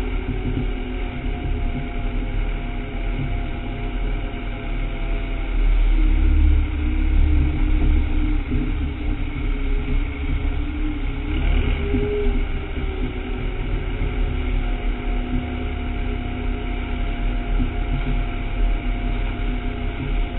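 Tractor engine running under load while driving over a rough forest track, with a heavy, uneven low rumble from the bumpy ground. It gets louder about six seconds in, and the engine note rises briefly around twelve seconds.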